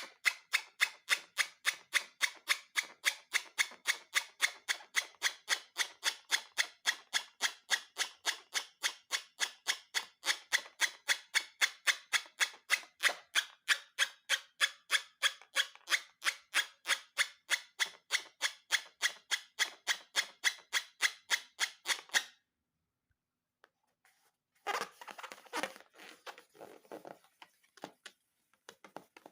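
A rapid, very even run of short snips or clicks, about three a second, that stops abruptly about 22 seconds in; a few seconds later comes a brief irregular rustle.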